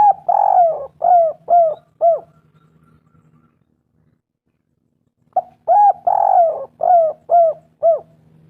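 Spotted dove (tekukur) cooing: two phrases, the second starting about five seconds in. Each phrase is a short coo, a longer rolling coo and three shorter coos, the typical 'kuk-3' ending.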